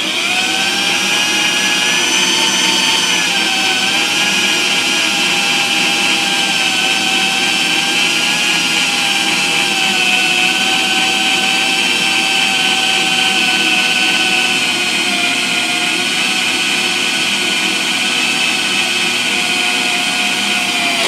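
Corded electric drill running steadily, driving a core drill that bores out a valve guide hole in a cast-iron 454 big-block Chevy cylinder head to take a K-Line guide liner. The motor's pitch sags a little a few seconds in under the cutting load, and it stops at the end.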